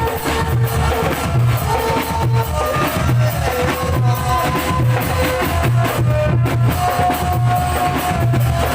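Music with a steady drum beat and a melody of held notes.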